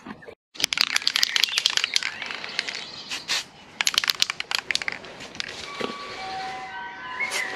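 Microfibre cloth rubbing and wiping over sanded plastic fog-light trim with degreaser, a dense crackly scrubbing for about three seconds and again briefly a little later. Near the end come a few short, steady whistle-like tones.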